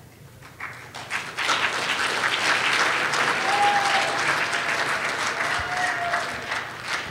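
Audience applauding, building up about a second in and thinning out near the end.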